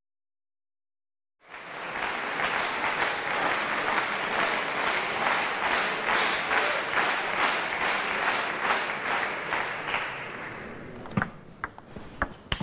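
Hall crowd applauding, starting after about a second and a half of silence and dying down after about ten seconds. Near the end, a few sharp clicks of a table tennis ball on bat and table as play resumes.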